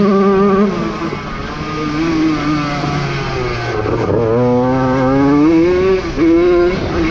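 Jawa 50 motocross bikes' small single-cylinder two-stroke engines revving hard. The pitch drops about a second in, climbs steadily from about four seconds, drops again near six seconds and rises once more near the end, as the throttle is rolled off and opened again and the gears change.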